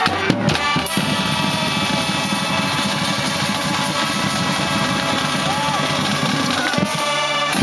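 Marching band brass section playing loudly, holding a long full chord over the drums, which breaks off near the end.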